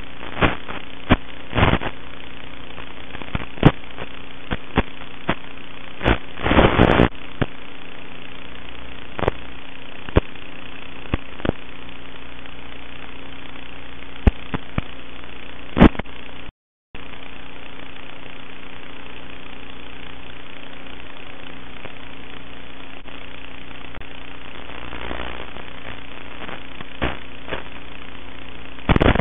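Steady electrical hum and hiss from an analog FPV video feed, broken by scattered static crackles and pops and one short dropout about two-thirds of the way through.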